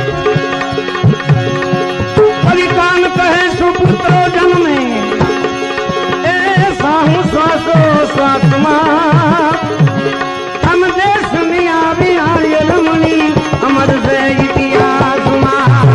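Gujarati devotional bhajan music: tabla strokes keep the rhythm under a wavering, ornamented melody line and a steady held drone.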